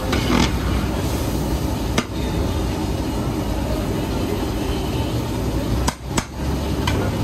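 A long metal ladle stirring rice boiling in a huge steel cooking pot. It scrapes at first, then knocks sharply against the pot about two seconds in and three times close together near the end, over a steady low rumble.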